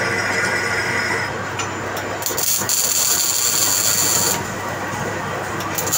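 Manual metal lathe running with a steady machine drone. A high hissing cutting noise from the tool on the metal workpiece comes in about two seconds in and stops about two seconds later.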